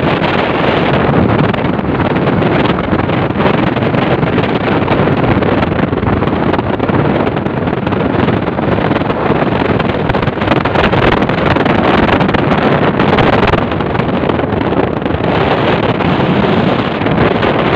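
Steady wind buffeting the microphone of a motorcycle rider's helmet camera while riding, over the motorcycle's running and road noise.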